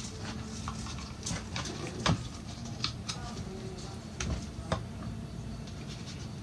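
Scattered light clicks and taps from handling a plastic oil filter housing cap and small tools over an oil drain bucket while its O-rings are being changed, with one sharper knock about two seconds in. A steady low hum runs underneath.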